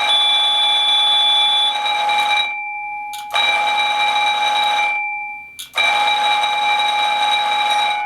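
Electric fire alarm bell of an automatic fire alarm system ringing loudly in three stretches, about three seconds then two and two, with brief breaks between. It stops near the end, cut so that the emergency voice broadcast can be heard.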